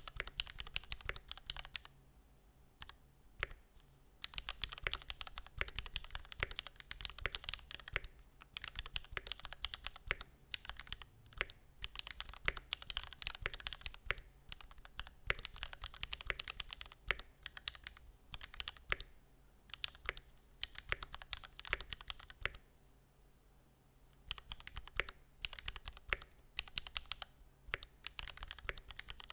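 Typing on a Mode Sonnet custom mechanical keyboard: runs of fast keystroke clacks broken by short pauses of a second or two.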